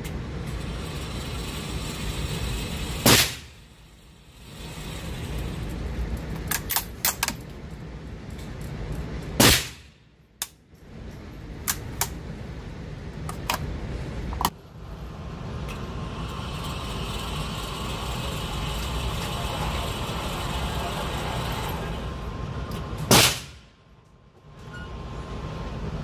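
Three shots from a Ruger American bolt-action rifle in .308, fired in an indoor range, about three, nine and twenty-three seconds in, each followed by a brief drop to quiet. Fainter clicks and knocks fall between the shots over a steady background noise.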